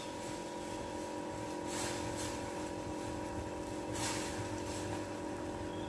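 Jaggery syrup boiling in a stainless steel pot on a gas stove, stirred with a silicone spatula, with a few faint scrapes, over a steady hum.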